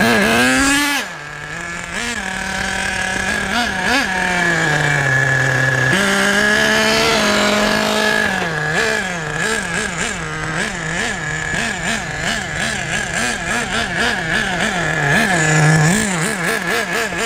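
Associated Nitro TC3's small .12 nitro engine revving up and down as the radio-controlled car is driven. The pitch climbs and falls in long pulls, then in quick repeated throttle blips about twice a second through the second half.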